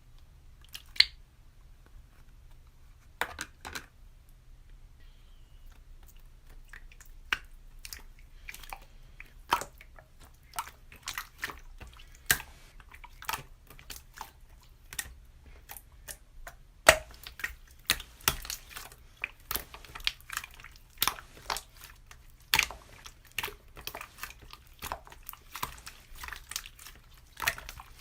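Slime being squeezed and pressed by hand, giving irregular wet clicks and pops. They are sparse at first and come quickly and thickly from a few seconds in.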